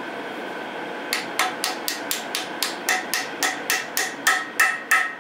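Hammer striking a steel drift held against a cast-iron D115 tractor engine block: a run of quick, even metallic taps, about four a second, each with a short ring. The taps start about a second in and grow louder toward the end.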